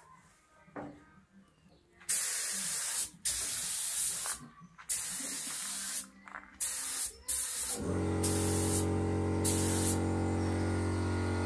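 Gravity-feed compressed-air paint spray gun hissing in repeated bursts of a second or so as the trigger is pulled and released. About eight seconds in, a steady low hum starts and carries on under the spraying.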